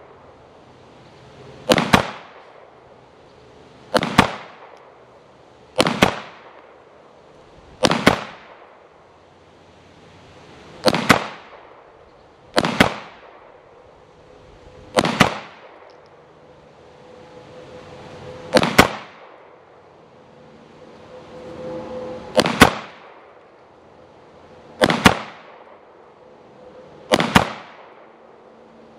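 SIG P320 M17 9mm pistol fired in slow, aimed single shots: eleven sharp gunshots, one every two to three seconds.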